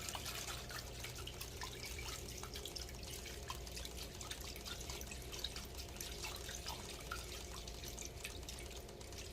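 Faint liquid sounds of a resin 3D print being stirred and swished in a bath of isopropyl alcohol: many small drips and splashes over a low steady hum.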